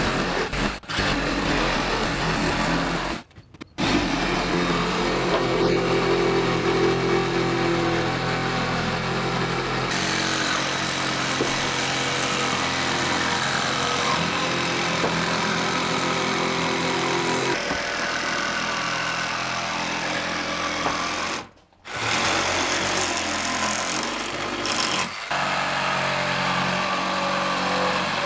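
Cordless reciprocating saw running and cutting through white oak bottom planks, trimming their ends flush at the hull's edge. Its motor tone shifts as it works, and the sound breaks off abruptly twice, about three seconds in and again about two-thirds of the way through.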